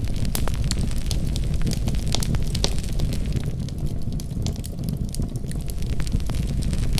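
Wood fire crackling and popping over a steady low rumble of the flames. The sharp crackles come thick and irregular, thinning out briefly in the middle.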